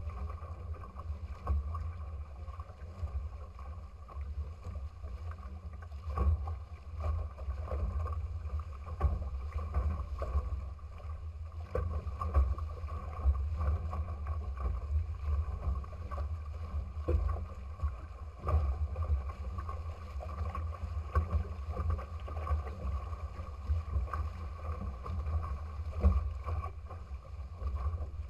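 Water rushing and splashing against the hull of a small trimaran under sail, with scattered slaps of chop and a steady low wind rumble on the microphone.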